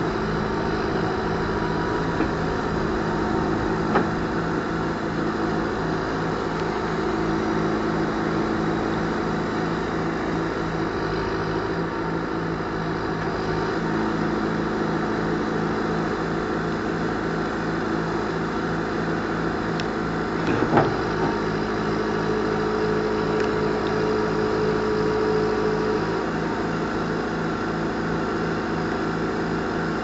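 John Deere 610C Turbo backhoe's diesel engine running steadily with an even low pulse, while the backhoe arm is worked from the cab. There is a single clank about two-thirds of the way in, and a steady whine for a few seconds after it.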